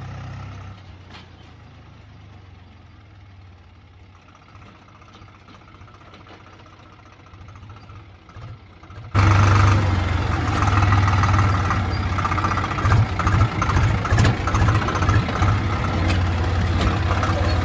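Farm tractor's diesel engine running as the tractor drives across a ploughed field, heard from the driver's seat. It is fairly quiet for about the first nine seconds, then suddenly much louder and rougher.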